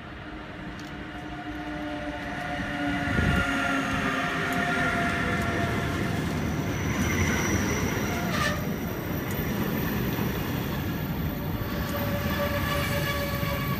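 A train passing close by on the rails, growing louder over the first few seconds as it approaches. Its wheels squeal on the rails in several steady tones over the rolling noise, and the sound cuts off suddenly at the end.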